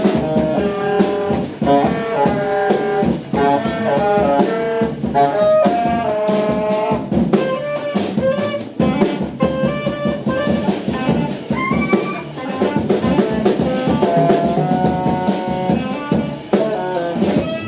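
Saxophone trio playing jazz: a saxophone runs through a melody of quick and held notes over bass and drum kit.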